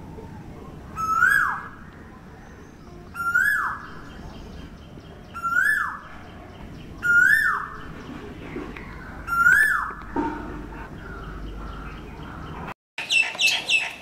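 Male Asian koel calling: five loud, matching calls about two seconds apart, each note sliding quickly up and then dropping away. Near the end the sound cuts to a busier run of higher, chattering bird notes.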